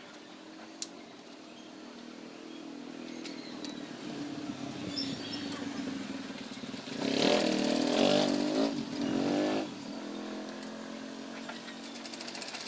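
A motor running with a steady hum that grows louder over several seconds. It is loudest for about three seconds partway through, then drops back.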